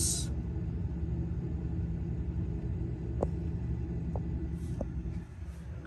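Refrigerator running: a steady low hum with a few light clicks about three to five seconds in.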